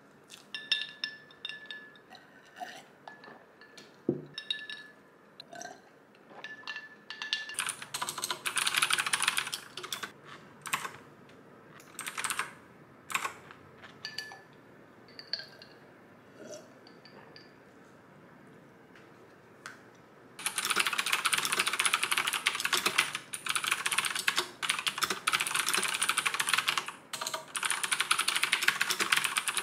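A fork clinking and scraping in an aluminium foil dessert tray, in scattered light taps, then from about 20 seconds in, rapid continuous typing on a computer keyboard.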